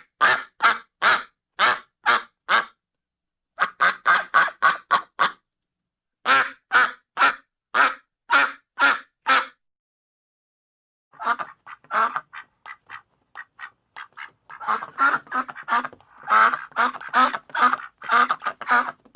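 Ducks quacking in runs of short calls, from a steady two or three a second to quick bursts of about six a second, with brief silent pauses between runs and a longer silence of about a second and a half past the middle. In the last five seconds several ducks quack over one another without a break.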